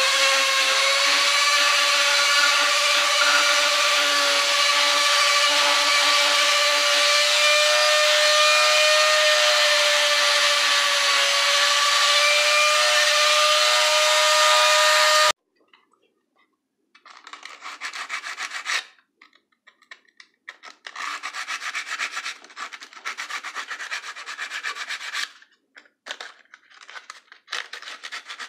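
A flexible-shaft rotary tool runs at a steady high whine as its small bit grinds and smooths the edges of cut-out wooden letters. About fifteen seconds in it cuts off suddenly, and irregular bursts of hand sanding strokes on the wood follow.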